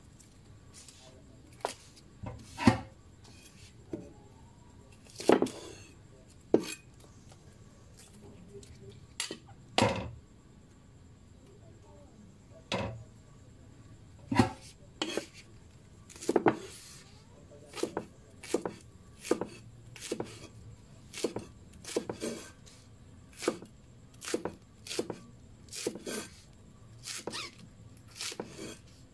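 A kitchen knife chopping spring onions on a thick round wooden chopping board: sharp knocks of the blade on the wood, scattered and irregular at first, then coming steadily at about two a second through the second half.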